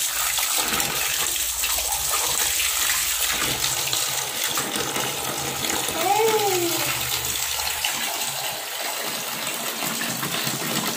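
A steady stream of water pouring and splashing onto plastic toy trucks in a plastic tub of water.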